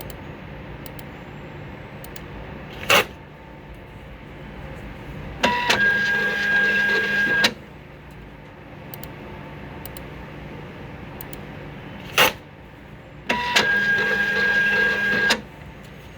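Direct thermal barcode label printer printing labels: twice, a run of about two seconds of motor whir and label feed with a steady high whine, each a couple of seconds after a short sharp burst. A steady low motor hum lies under it throughout.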